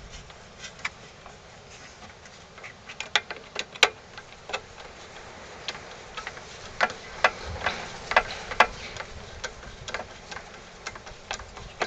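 Irregular sharp clicks and ticks from a hand tool working the screws that hold a Briggs & Stratton plastic Pulsa Prime carburetor to its tank as they are snugged down, in small clusters with short gaps between.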